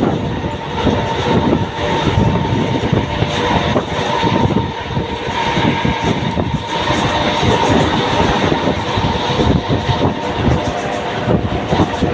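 Mumbai suburban electric local train running at speed, heard from on board: wheels clattering continuously over the rails under a steady whine.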